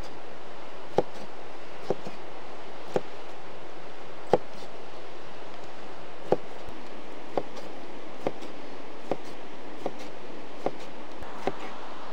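Short, sharp knocks, roughly one a second, over a steady rushing noise.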